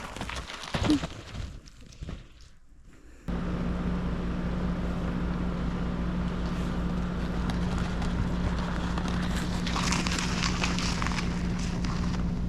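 Crunching on ice-crusted snow, short scattered crackles, for the first few seconds. Then, starting suddenly, a steady engine-like hum with a constant low tone runs on, with some crackling over it near the end.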